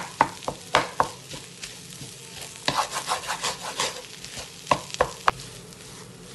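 Wooden spatula stirring and mashing a fish-and-potato cutlet mixture in a frying pan: groups of quick scraping knocks against the pan over a faint steady sizzle.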